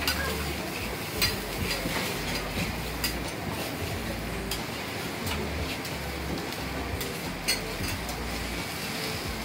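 Metal spatulas clinking and scraping on a flat iron griddle while okonomiyaki cook, with several sharp metallic clinks a second or two apart over steady kitchen noise.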